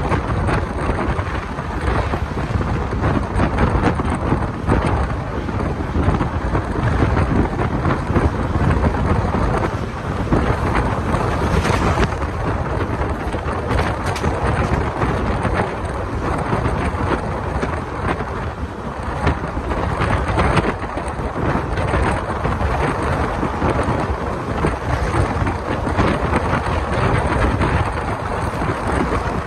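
Wind buffeting the microphone held out of a moving passenger train's window, over the steady running rumble of the coach's wheels on the rails.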